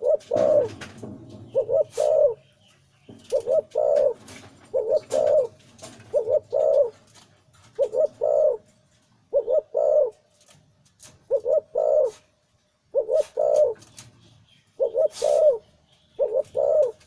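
Male zebra dove of the Thai 'Liu Tan' show-singing line cooing in a deep voice: short phrases of two or three quick coos, repeated every second or two.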